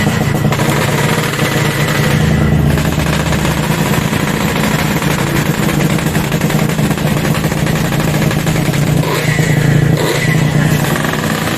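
Yamaha RX-King's single-cylinder two-stroke engine running steadily after a rebuild with a new connecting rod and oversize piston; it runs smooth, without the earlier rough noise.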